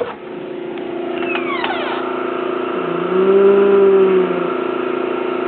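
Snowblower running with a steady hum that grows louder as the door opens, briefly rising in pitch and level for about a second and a half midway, then settling back.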